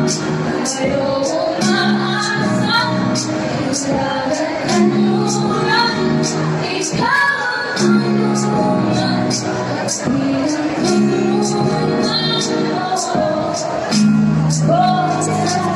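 Pop song with a woman singing over a steady drum beat.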